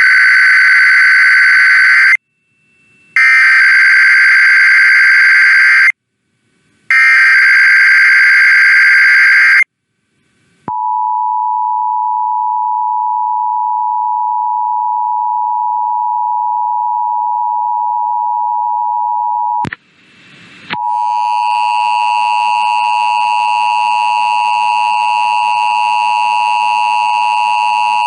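Emergency Alert System test signal: three loud bursts of SAME header data, each about two seconds long, then a steady two-tone attention signal for about nine seconds. After a second's break, a harsher tone with many overtones starts and carries on.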